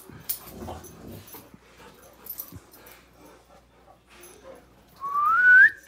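Dogs playing with quiet scuffling and pawing on carpet. Near the end comes one loud, high-pitched whine that rises steadily in pitch for under a second.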